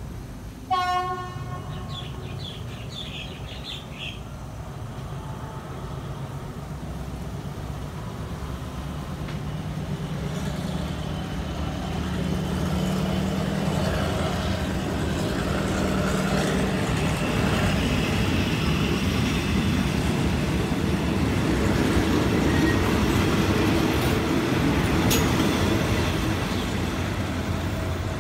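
A short horn toot from the departing Alsthom diesel locomotive about a second in, then the passenger coaches of the train rolling past and picking up speed, the rumble of wheels on the rails building steadily and easing slightly near the end as the last coach pulls away.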